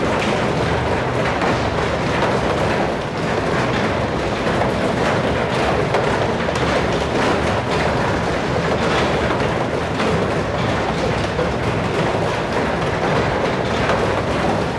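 Revolving climbing wall turning under a climber: a steady rattling rumble of the moving wall, with knocks of hands and feet on its wooden rungs.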